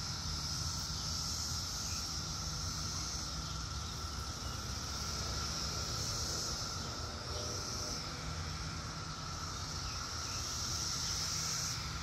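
A chorus of cicadas droning steadily, a high hissing buzz that swells and fades in slow waves and drops off suddenly near the end, with a lower steady whine beneath it.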